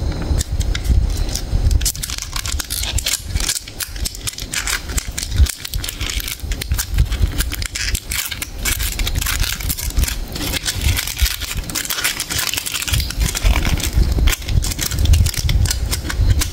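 Gold foil wrapper of a Ferrero Rocher chocolate crinkling and crackling as it is peeled open by hand, with a fluted paper cup being pulled away. A low rumble sits under it at the start and again near the end.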